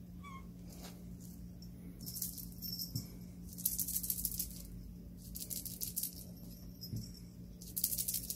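A small bell jingling in four short bursts, shaken as a cat plays, over a faint steady low hum.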